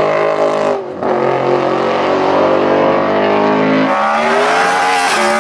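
Race car engine running with a steady drone, broken briefly about a second in, then rising and wavering in pitch, revving, from about four seconds in.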